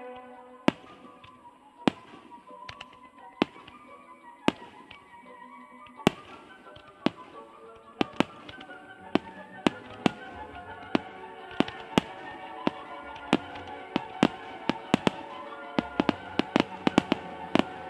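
Aerial fireworks bursting in sharp bangs, about one a second at first, then coming in a fast run near the end. Music with long held notes plays under them.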